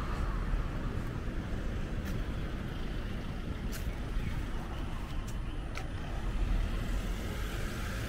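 Steady rumble of road traffic in a city street, with a few faint sharp clicks.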